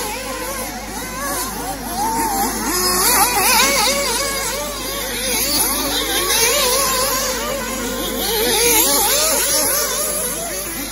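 Several 1/8-scale nitro off-road RC buggies racing, their small glow-fuel engines buzzing at a high pitch. The overlapping engine notes keep rising and falling as the cars accelerate and lift off around the track.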